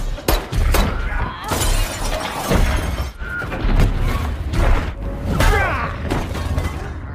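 Film fight sound effects: a rapid series of hits, thuds and things shattering, with voices in the struggle.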